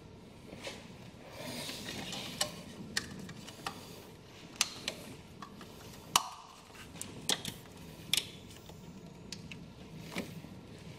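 Hands handling a plastic wiring connector while reconnecting it: scattered small clicks and rustling, with the sharpest click about six seconds in.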